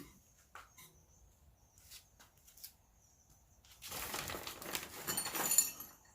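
A few faint clicks and taps, then about two seconds of rustling, handling noise.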